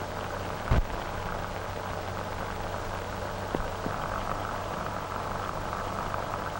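Steady hiss with a low hum from an old optical film soundtrack. There is a sharp click at the start and a short thump just under a second in.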